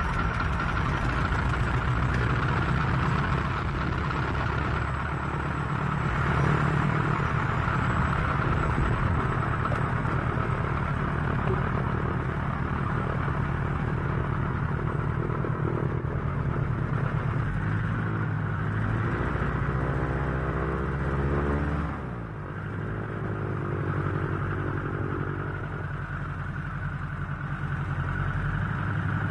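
Airplane engines running steadily during takeoff, with a deep rumble throughout. A rising whine comes in about eighteen seconds in, and the noise briefly drops near the twenty-two-second mark before settling back.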